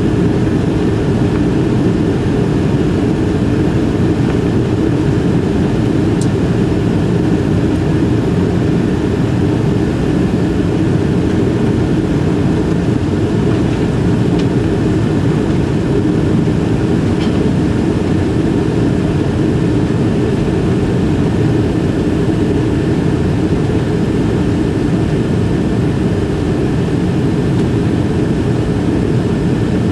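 Steady cabin noise of a Boeing 777-300ER climbing after takeoff: its GE90 jet engines and the rushing airflow, heard through the fuselage. It is mostly a deep, even rumble with a faint high whine over it.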